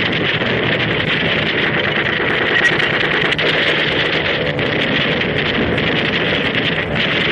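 Piston aircraft engines droning steadily, with a constant rush of wind.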